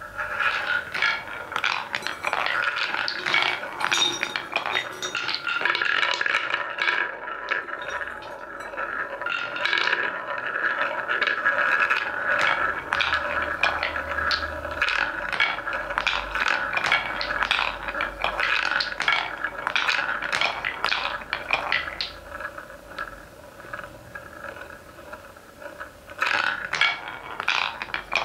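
Wooden balls rolling along a wooden marble-run track and circling in a wooden funnel bowl: a continuous rolling rumble with frequent clacks as the balls knock against each other and the track. It thins out after about 22 seconds, then a quick cluster of clacks comes near the end.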